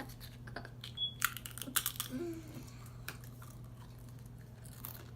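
A person chewing and handling food, with a cluster of short crunches and clicks in the first two seconds that then die down to quiet chewing over a steady low hum.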